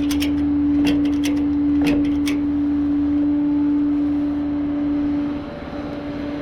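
Flatbed tow truck running with a steady, even drone. A few sharp clicks come in the first couple of seconds, and the drone drops away briefly about five seconds in.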